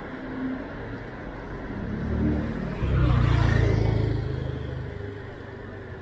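A motor scooter overtakes close by, its engine growing louder from about two seconds in, loudest for a second or so, then fading as it pulls ahead, over steady street and riding noise.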